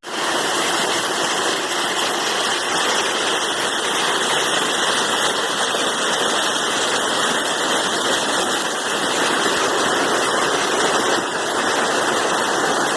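Steady loud rushing noise, even across the middle and high pitches with little bass, starting abruptly at a cut.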